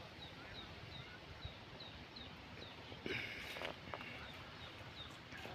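A bird repeating a short, high, falling chirp about two to three times a second, stopping a little before halfway. About three seconds in there is a louder, rougher sound lasting under a second.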